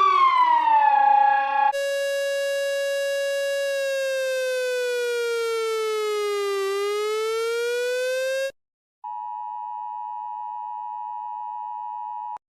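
Electronic emergency-alert tones. A buzzy tone with many overtones glides down, holds, then slides slowly lower and back up before cutting off suddenly. After a short gap comes the steady two-tone Emergency Alert System attention signal, two close pitches near 853 and 960 Hz sounding together for about three and a half seconds before stopping.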